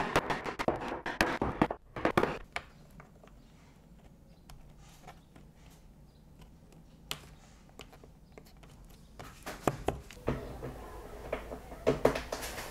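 Steel chisel chopping out a bowtie-key mortise in a walnut slab: a quick run of sharp cracks and knocks for about the first two seconds. After a quiet stretch, scattered light clicks and knocks follow near the end as the bowtie key is fitted by hand.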